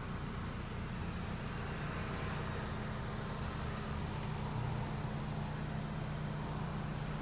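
Steady low mechanical hum, even throughout, with no other events.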